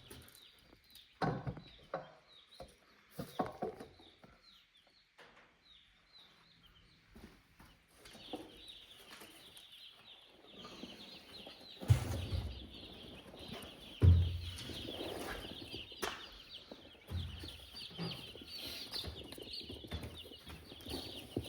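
Many day-old Cornish cross chicks peeping, a dense chorus of short high cheeps that grows busier about halfway through. Several dull knocks and thumps from handling, the loudest two close together in the middle.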